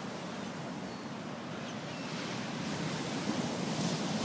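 Steady wash of ocean surf and wind, growing slightly louder.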